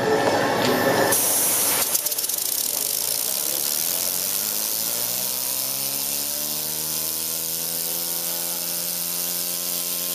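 Small pneumatic motor with an aluminium flywheel, driven by compressed air from a blow gun: air hisses steadily from about a second in, and from about four seconds the motor's hum rises in pitch as it spins up, then holds steady.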